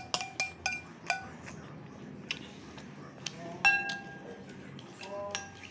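A spoon clinking against a plate while eating: a quick run of clinks in the first second, a few scattered ones after, the loudest a little past halfway.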